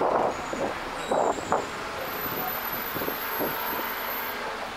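Outdoor city noise: a steady rush of traffic and wind on the microphone, with a few brief louder bumps in the first second and a half.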